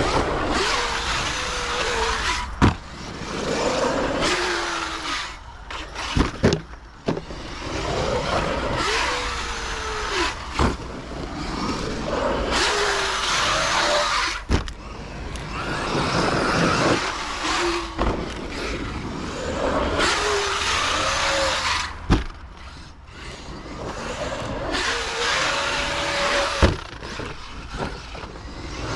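Arrma Kraton 8S EXB RC monster truck being driven hard on dirt: its brushless motor whines, rising and falling in pitch with repeated bursts of throttle, over the rush of tyres on dirt. Sharp knocks come roughly every four seconds.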